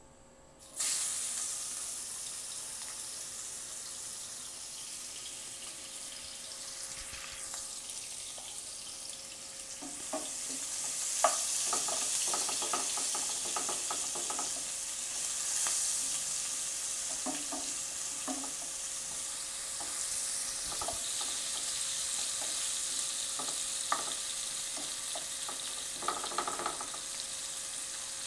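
Sliced onions hit hot oil in a non-stick frying pan and start sizzling suddenly about a second in, then keep frying steadily. From about ten seconds on a wooden spatula scrapes and taps against the pan as the onions are stirred.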